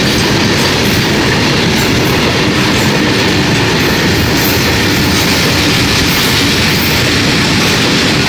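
Freight train of Indian Railways BTPN petroleum tank wagons rolling past at close range: loud, steady running noise of steel wheels on the rails.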